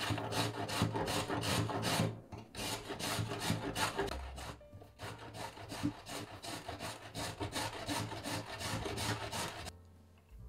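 A carrot being grated on a stainless-steel box grater over a wooden cutting board: quick, even rasping strokes, with two brief pauses, stopping just before the end.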